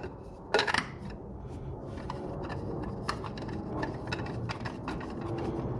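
Small handling noises: light clicks, scrapes and rubbing as parts are handled, with a short rustling scrape about half a second in.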